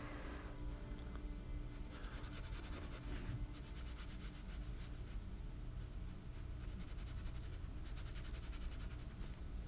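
Faint scratchy rubbing of a flat paintbrush laying gouache across toothy watercolor sketchbook paper in repeated strokes, over a low steady room hum.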